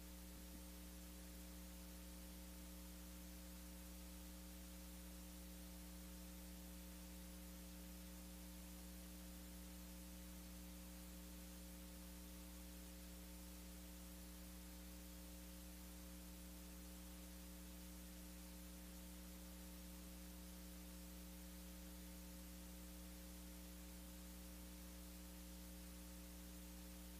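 Near silence: a faint, steady electrical hum with a light hiss, unchanging throughout.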